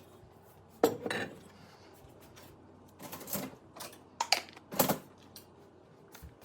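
Dishes and utensils clattering and clinking as they are lifted out of a dishwasher and set down, in several separate knocks with short pauses between them.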